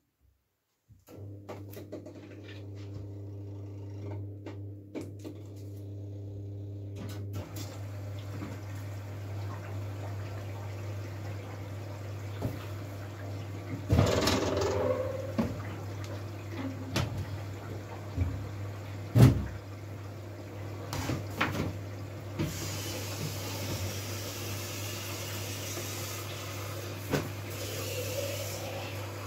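Miele W433S front-loading washing machine taking in water: a steady mains hum from the inlet valve starts about a second in, water rushes into the machine under it, and a few knocks and clunks come from the drum, the loudest past the middle.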